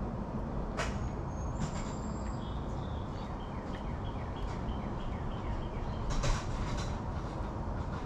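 Steady low rumble of outdoor background noise, with a small bird giving a run of short, evenly repeated high chirps in the middle and a couple of sharp clicks.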